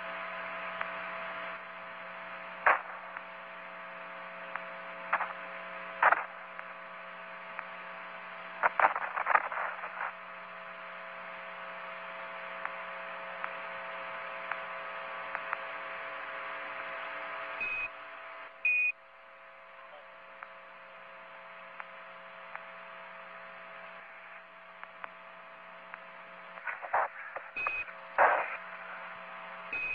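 Steady electrical hum under radio static hiss, with scattered crackles and clicks. A few brief high beeps come around the middle and near the end.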